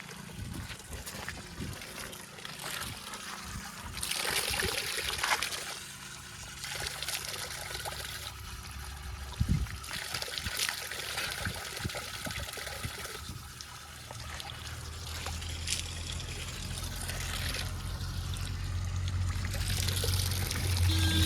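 Mud and soil spilling and pouring from a JCB 3DX backhoe loader's bucket, with scattered clatters, over the backhoe's diesel engine running low; the engine hum grows louder in the last several seconds.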